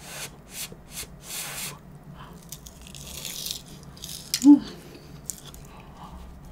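Close-up eating sounds of a hot, flaky egg tart: short crisp chewing noises in quick succession, then breathy huffs, and a brief hum about four and a half seconds in.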